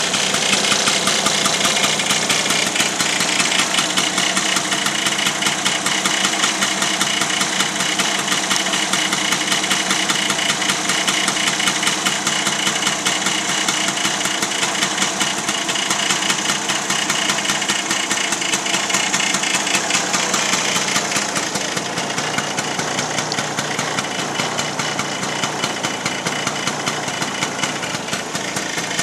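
1970 Vespa Sprint Veloce's single-cylinder two-stroke engine idling steadily, with a fast, even pulse that grows a little quieter about two-thirds of the way through.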